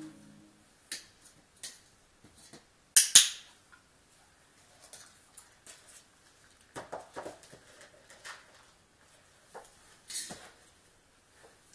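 An Australian shepherd's paws and nails tapping and scraping on an upturned stainless-steel bowl as the dog steps and pivots around it, in irregular taps and clicks. The loudest is a sharp double click about three seconds in.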